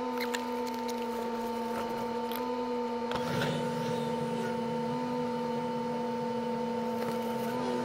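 Steady mechanical hum with a clear pitch inside a car cabin in slow traffic, shifting slightly in pitch a few times, with a few faint clicks.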